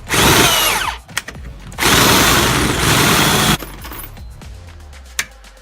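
Handheld power drill boring holes through a sheet-metal washing-machine lid, in two runs: one in the first second and a longer one from about two seconds in to three and a half. The motor's pitch falls as it spins down after each run.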